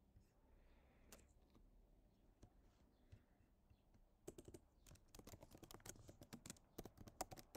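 Faint typing on a computer keyboard: a single click about a second in, then a quick run of keystrokes through the second half.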